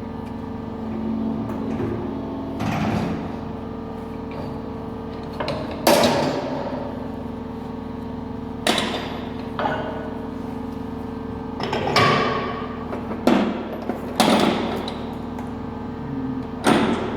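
Sharp metal knocks, about eight at irregular intervals, consistent with hammer blows on an alloy wheel rim being straightened, over the steady hum of a workshop machine.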